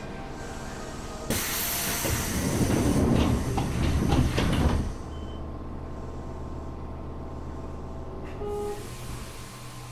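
Running sound from inside an armature-chopper-controlled Tokyo Metro 7000 series electric train car at speed: a steady low hum with level tones. About a second in, a loud rushing hiss lasting about three and a half seconds covers the hum, with a few sharp knocks near its end, before the steady hum returns.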